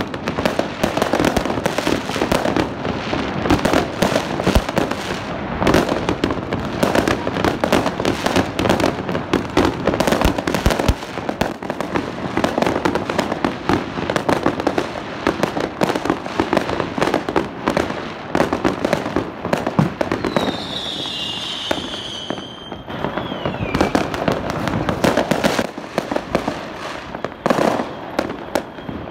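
Many fireworks going off at once: a dense, unbroken run of bangs and crackles. A little over two-thirds of the way in, a high whistle slides down in pitch.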